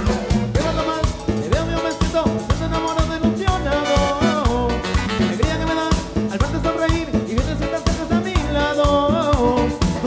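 Live cumbia band playing dance music on a steady, quick beat.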